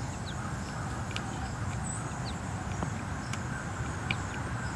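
Outdoor ambience: a steady low rumble with a few short, high bird chirps and scattered light ticks.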